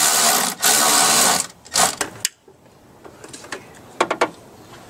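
Small cordless power driver whirring in two runs, tightening a hose clamp on the cold-air intake; it stops about a second and a half in. A few light clicks of hand tools follow.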